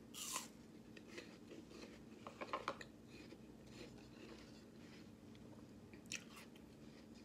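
A bite into a crisp raw apple slice, then crunchy chewing of the mouthful, with a cluster of crunches about two and a half seconds in and another near the end.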